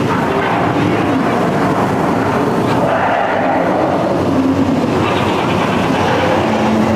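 Steady, loud rumbling and hissing of the attraction's volcano and lava effects, with no break.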